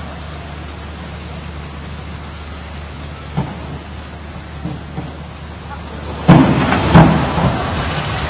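Steady watery hiss, then a diver hitting the pool with a loud splash about six seconds in, a second loud burst of splashing following under a second later before the water noise settles into a steady wash.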